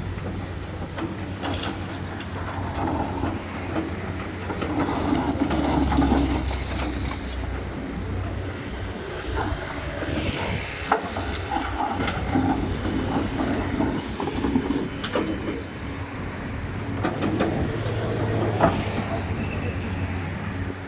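Hydraulic excavator's diesel engine running and swelling under load as it works, with occasional sharp metallic knocks.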